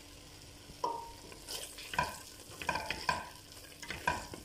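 A spatula stirring thick tomato sauce and broccoli in a stainless steel pot, knocking against the pot about six times with a brief metallic ring, over the sauce simmering.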